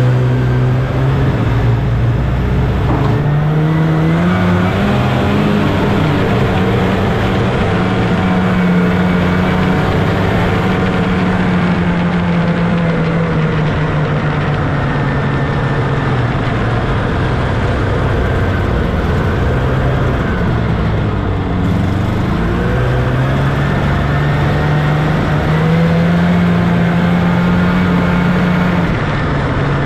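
1979 Scorpion Whip TKX 440 snowmobile's two-stroke Cuyuna 440 engine running under way. It revs up over the first few seconds and holds a steady pitch. About two-thirds through it eases off and then picks up again.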